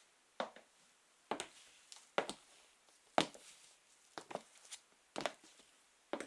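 High-heeled sandals walking slowly on a floor, each step a sharp tap, about one a second and often doubled as heel and sole land.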